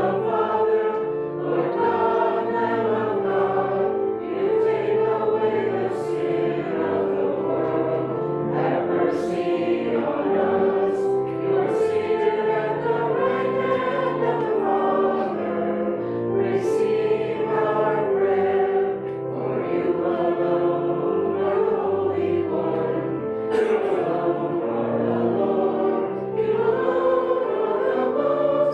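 A congregation singing a hymn with instrumental accompaniment, in held notes that change at a slow, even pace. It comes through a video-call connection, so the sound is dull, with no high end.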